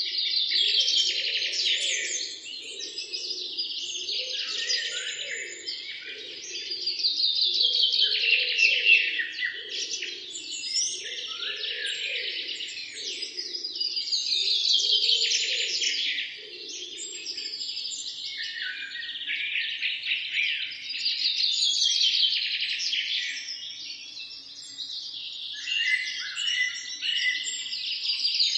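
Birds chirping and twittering in a dense, busy chorus of quick high notes, swelling louder and fading back about every six or seven seconds.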